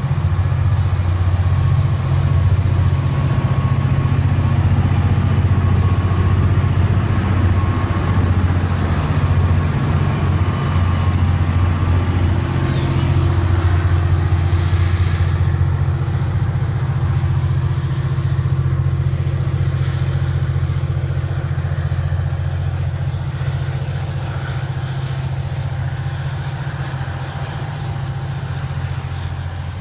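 A grain train's diesel-electric locomotives pass close by with a loud, steady low engine drone, followed by loaded grain hopper wagons rolling over the rails. The sound eases slightly near the end as the wagons go by.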